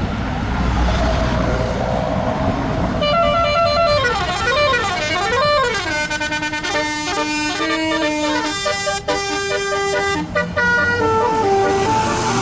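Tour bus telolet horn playing a multi-tone melody, starting about three seconds in: notes sweep up and down in a zigzag, then step downward near the end. Bus engine and traffic noise lies beneath it and fills the first few seconds.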